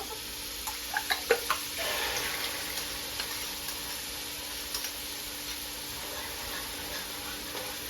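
A few quick knocks, then eggs sizzling steadily in a hot frying pan.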